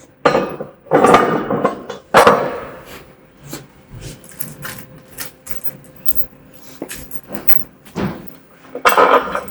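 Steel parts of a sawmill bed clanking and scraping as they are handled during assembly. There are four loud bursts, about 0.2, 1, 2 and 9 seconds in, with lighter knocks between them and a faint ringing tone.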